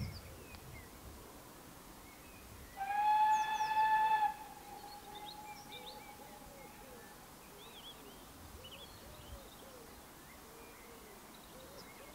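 A steam locomotive whistle sounds one steady blast of about a second and a half, a few seconds in, and its tail lingers and fades for a few seconds after. Birds sing throughout.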